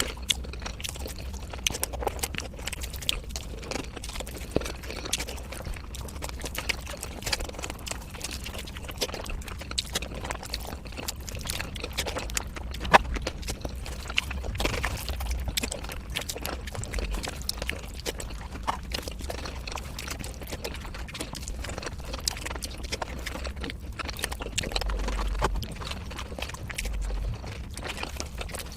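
Mukbang eating sounds of panta bhat (watered rice) sped up ten times: a dense, continuous run of quick clicks and smacks.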